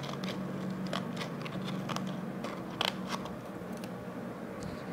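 Sandpaper wrapped around a ruler crinkling and crackling as it is handled, with scattered sharp clicks.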